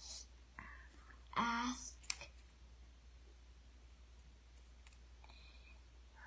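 Mostly quiet room, broken by a brief sound from a person's voice about one and a half seconds in and, right after it, a single sharp click.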